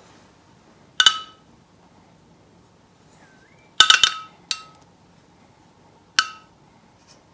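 Glass bowl clinking as white sauce is poured from it onto a lasagna, each strike ringing briefly. There is one clink about a second in, a quick cluster of three or four near the middle, then two more single clinks.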